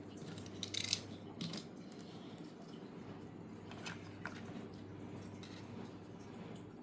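A few soft, irregular clicks and taps of a charger and its plastic packaging being handled, over a steady low hum.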